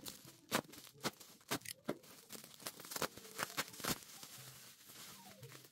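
Plastic wrap crinkling and rustling in irregular sharp crackles as a wrapped carved stone skull is lifted and handled.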